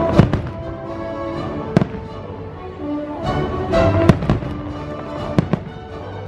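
Fireworks bursting with several sharp bangs over loud show music.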